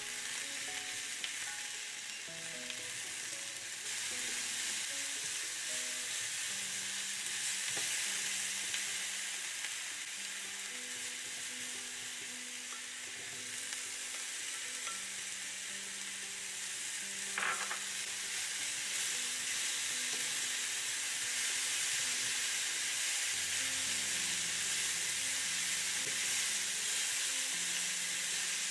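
Onions, mushrooms and pickles sizzling as they fry in a nonstick frying pan, turned over now and then with kitchen tongs; one sharp click about two-thirds of the way through.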